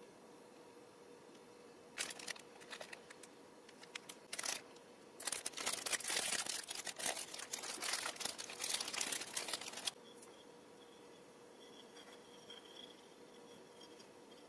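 Clear plastic film wrapper of a baguette sandwich crinkling and tearing as it is unwrapped by hand: a few short crackles, then several seconds of dense crinkling that stops suddenly about two-thirds of the way in.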